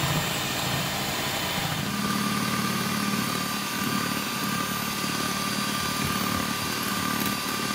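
Electric hand mixer running steadily, its beaters whisking creamy cake batter in a glass bowl; its tone shifts slightly about two seconds in.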